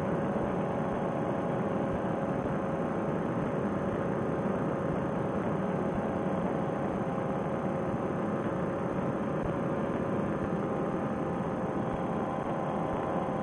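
Paramotor trike's engine and propeller running steadily in cruising flight: an even drone with a constant hum, heard thin and muffled through a Bluetooth headset microphone.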